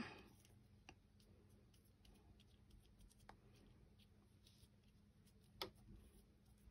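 Near silence with faint rustles and ticks of paper and lace being pressed down by hand onto a card, and one sharper click about five and a half seconds in.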